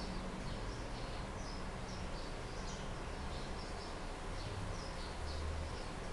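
Small birds chirping in the background, many short high chirps at an irregular rate of about two or three a second, over a low steady hum.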